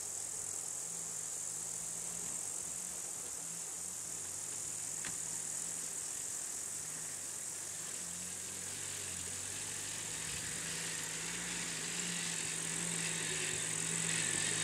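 Steady high-pitched insect chirring, like crickets, over the low, even hum of an idling engine.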